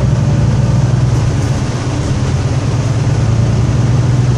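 Mercedes-Benz Conecto II city bus heard from inside the passenger cabin: its diesel engine running with a steady low drone, along with the general noise of the moving bus.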